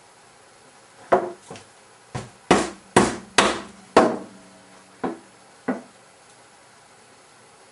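Small sledge hammer driving a nail through a stuffed toy into a small wooden cross: about nine uneven blows, the middle ones loudest, some leaving a short ring. They start about a second in and stop about six seconds in.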